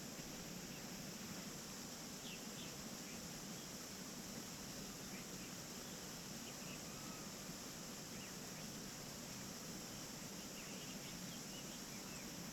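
Faint forest ambience: a steady hiss with scattered short, faint bird chirps.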